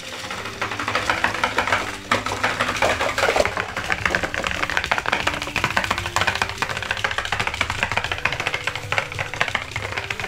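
Tamiya Mecha-Tiger walking robot kit running: a rapid, continuous plastic clattering of its small motor gearbox and feet tapping along the course. Background music plays underneath.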